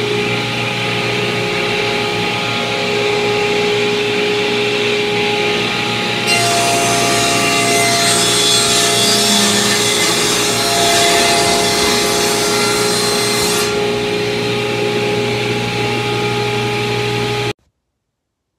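Sliding table saw running with a steady hum. From about six seconds in until about fourteen seconds, its blade rips a narrow strip off a hardwood board, adding a louder, brighter hiss. The sound stops abruptly about a second before the end.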